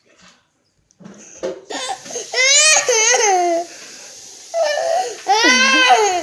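A young child making long, wavering, high-pitched wailing noises, crying-like, in two main drawn-out calls.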